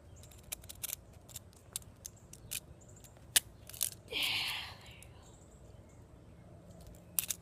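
Small plastic clicks and snaps of a fidget spinner being handled as its loose centre bearing is pushed at, one sharper click a little over three seconds in. A short breathy rush about four seconds in.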